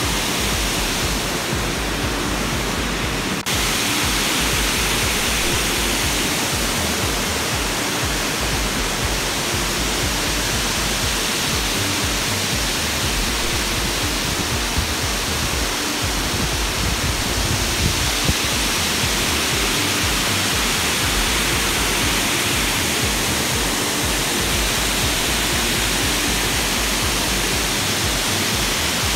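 Water rushing and churning at the foot of a dam, a steady, loud rush of falling water with a small step in level about three and a half seconds in.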